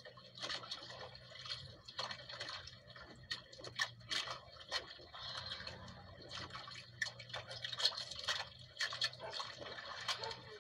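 Sea water lapping and splashing against the hull of a small outrigger boat, with irregular drips and slaps over a faint steady low hum.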